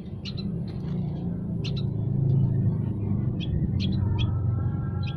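Small caged songbirds giving short, sharp chirps and calls, scattered irregularly, over a louder steady low rumble that swells slightly towards the middle.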